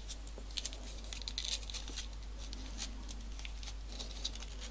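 Faint rustling and light ticks of folded paper modular origami pieces being handled and slotted onto the model.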